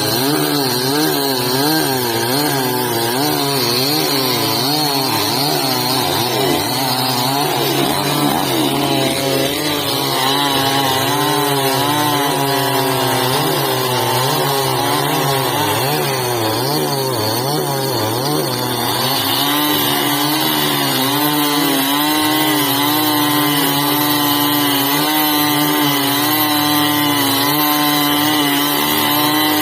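Chainsaw running continuously while cutting a tree, its engine pitch wavering up and down as the load on the chain changes, then holding steadier for the second half.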